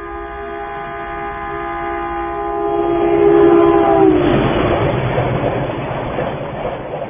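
Indian Railways electric locomotive sounding a long, steady horn chord that dips in pitch about four seconds in as the train passes. The horn is followed by the noise of the train running by, which fades towards the end.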